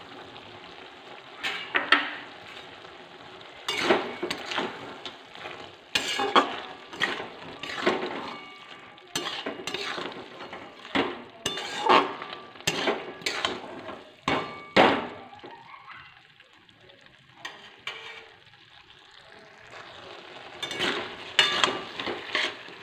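A spatula scraping and knocking against a metal kadai as a thick, wet vegetable curry is stirred, in irregular strokes. The stirring stops for a few seconds near the end, then starts again.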